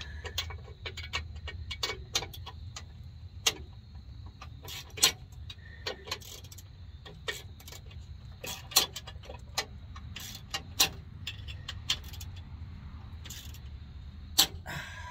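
Irregular sharp metallic clicks and clinks of hand tools working the Sumo Spring's mounting hardware on a Ford F53 motorhome chassis, over a low steady hum.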